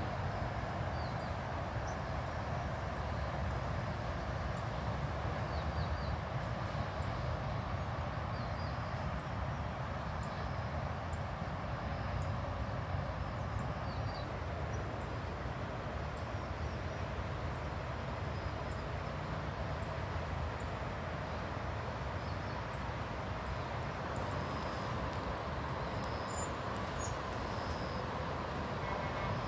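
Outdoor insect chorus: insects chirping very high in a fast, regular pulse, a few chirps a second, with short higher chirps now and then, over a steady low rumble.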